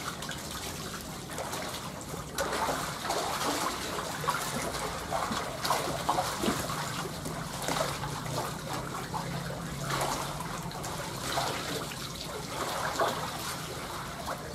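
Shallow muddy water in a drained catfish pond splashing and trickling irregularly as someone wades through it and gropes in it by hand.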